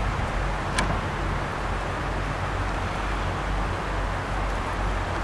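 Steady outdoor background noise with a low rumble, such as wind on the microphone or distant traffic, and one short click about a second in.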